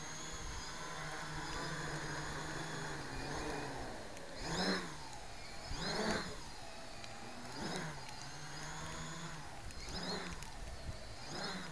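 Quadcopter with MS2216 900kv brushless motors and 10x4 wooden props hums steadily in a hover for about four seconds. It then spools up and back down in short throttle blips, about five of them, roughly every second and a half.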